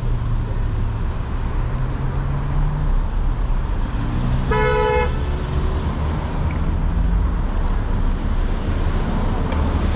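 Street traffic: cars driving through an intersection with a steady engine and tyre noise, and one short car horn toot about halfway through.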